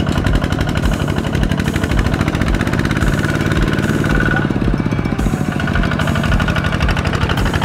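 Kubota ZT155 walking tractor's single-cylinder diesel engine running under load with a fast, steady chugging beat, pulling a trailer loaded with rice sacks through deep mud. Its pitch wavers a little about halfway through.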